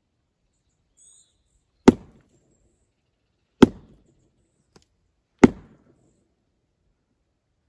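Three sharp wood-on-wood knocks a little under two seconds apart, each with a short ringing tail: a log struck against a fallen log, the wood knock used to 'call Bigfoot'.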